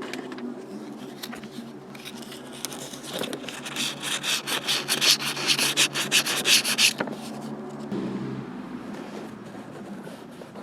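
Rapid back-and-forth rubbing strokes on a hard surface, loudest in the middle of the stretch and then dying away, over a steady low hum.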